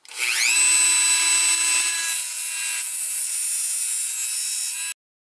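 Dremel rotary tool with a cutoff wheel spinning up with a rising whine, then running at speed with a steady high-pitched whine, and cutting off abruptly near the end.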